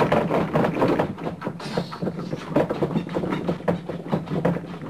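Rapid, irregular crackling and clattering, a crash-like noise as the plastic toy car tumbles and is set back on its wheels among the action figures.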